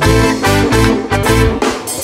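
Live reggae band playing an instrumental passage: guitar over bass guitar and drums, without vocals.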